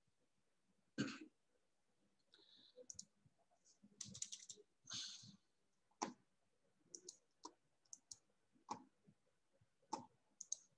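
Faint computer mouse clicks and keyboard taps, scattered irregularly, the loudest about a second in.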